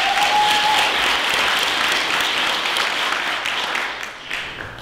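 Theatre audience applauding, with one short rising cry near the start; the clapping dies away near the end.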